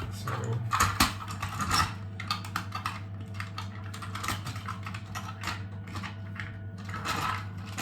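Irregular light clicks and taps of hard 3D-printed plastic parts being handled and pushed together, as a small locking piece is tried in its slot. A steady low hum runs underneath.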